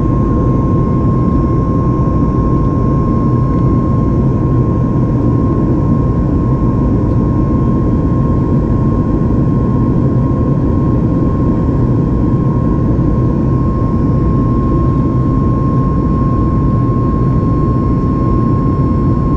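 Steady cabin noise of a Boeing 737 MAX 8 in flight, heard from inside the cabin: an even rumble from its CFM LEAP-1B engines and the airflow, with a thin steady tone running through it.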